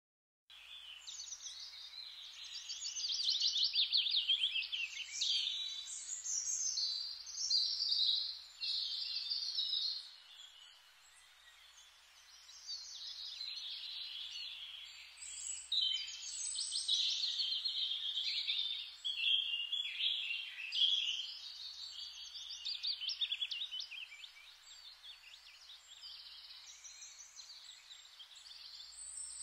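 Many birds chirping and trilling together in a busy, overlapping chorus that swells and fades, quieter for a couple of seconds about a third of the way in and again near the end.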